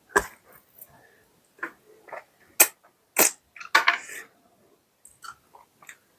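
Close-miked eating: a series of sharp, loud crunching bites and chewing sounds, the loudest a few seconds in, trailing off into softer smacks near the end.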